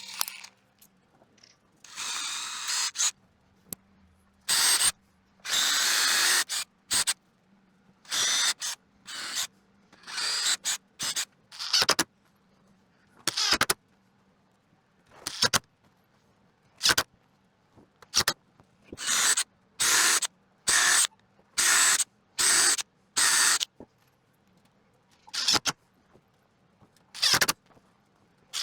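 Power drill driving screws into wood in about twenty short bursts, each lasting a fraction of a second to about a second, with quiet pauses between them.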